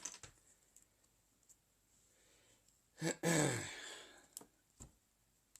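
Small plastic clicks of LEGO minifigure parts being handled and pressed together, a few sharp ticks at the start and again near the end. About three seconds in, a short voiced sigh falling in pitch is the loudest sound.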